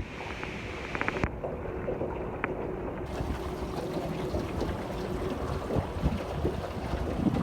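Small boat sitting on the water with low wind and water noise. A few sharp clicks and knocks come about a second in, and a faint steady hum runs under the rest.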